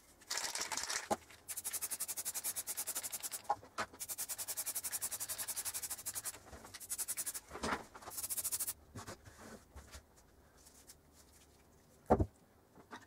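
Aerosol spray paint can hissing in several bursts, much of it in rapid, even pulses. A single sharp knock near the end.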